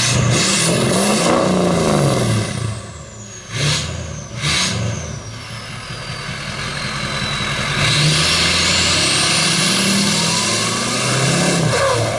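Warmed-up 6.0 Powerstroke V8 turbodiesel revved through a DPF-back exhaust: one rev up and back down, two quick blips, then a longer rev held near the end. A high turbo whistle falls away after the blips and rises again with the last rev.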